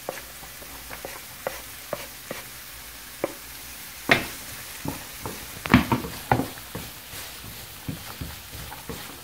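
Diced onions and carrots sizzling in a little oil in a non-stick frying pan, with a wooden spatula scraping and knocking against the pan as they are stirred. The knocks come thicker from about four seconds in.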